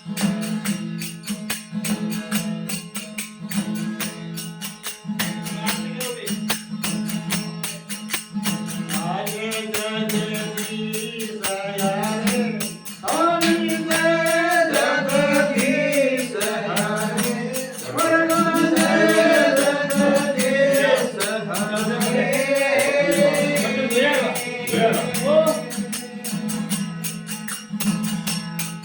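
Devotional aarti bhajan: a man singing to a strummed desi veena (tandura) drone and fast, steady metallic jingling percussion. The instruments play alone at first, and the singing comes in about nine seconds in and stops shortly before the end.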